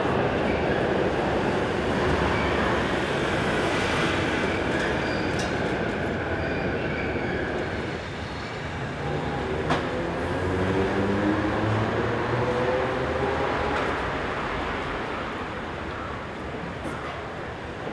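A steady loud rumble of rail traffic, then a Toden Arakawa streetcar pulling away: its motor whine climbs steadily in pitch as it gathers speed, with a sharp click from the wheels on the track about ten seconds in.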